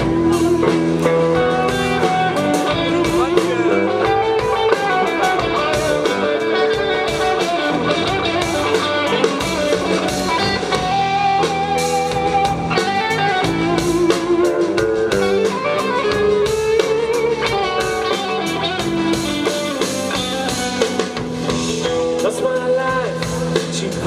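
Live rock band playing an instrumental stretch: electric guitar lines over bass guitar and drum kit.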